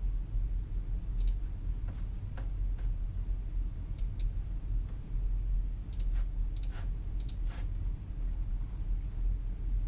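Quiet office room tone: a steady low hum under scattered, irregular computer keyboard and mouse clicks, a dozen or so sharp clicks that bunch together in the middle and thin out toward the end.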